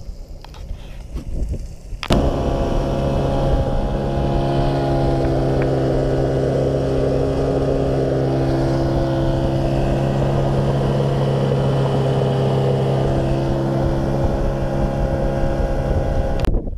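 Yamaha 40 hp outboard motor driving the boat at steady speed, with water rushing and spraying from the propeller wash and hull. The engine note cuts in suddenly about two seconds in and holds a steady pitch throughout.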